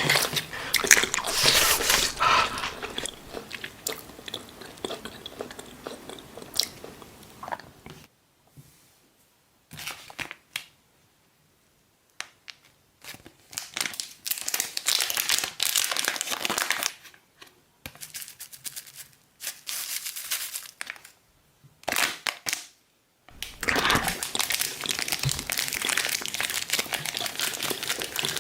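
Close-miked ASMR eating sounds: crunchy bites and chewing of a pizza, in bursts of a few seconds separated by short quiet gaps.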